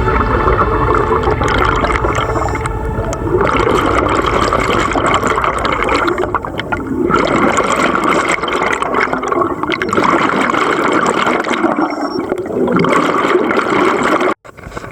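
Scuba diver's exhaled bubbles rushing and gurgling past an underwater camera housing. The bubbles come in long loud bursts with short lulls between breaths, and cut off suddenly near the end.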